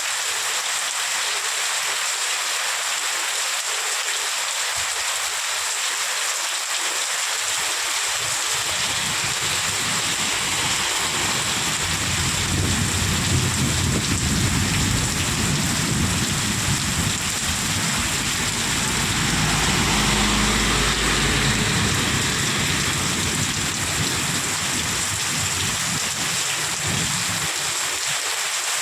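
Heavy, torrential rain pouring down in a steady hiss. A low rumble builds partway through, swells to its strongest a little past the middle, then dies away.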